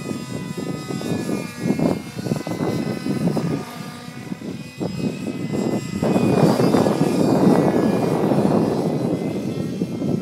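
Glow-fuel engine of a radio-controlled model helicopter running, with a faint steady high whine over a rough, fluttering drone. It gets louder about six seconds in.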